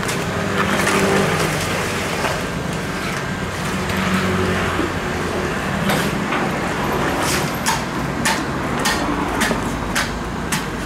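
Steady street-traffic noise with a low hum. From a little past halfway, a string of sharp clicks and knocks, roughly two a second.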